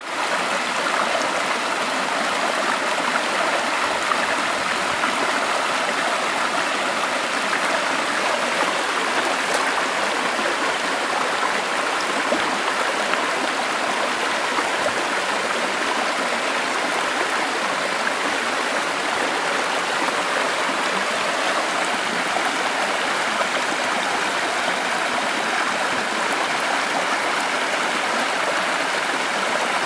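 Shallow mountain stream running fast over stones: a steady, even rushing and babbling of water.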